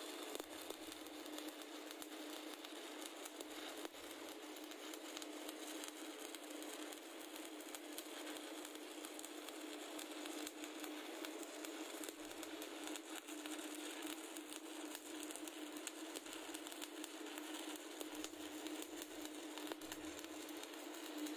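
Stick (SMAW) welding arc crackling steadily as the electrode burns along a pipe flange joint, a continuous dense run of fine crackles without a break.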